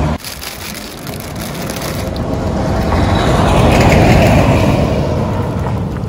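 A road vehicle passing: a rushing noise that swells to a peak about four seconds in and then fades.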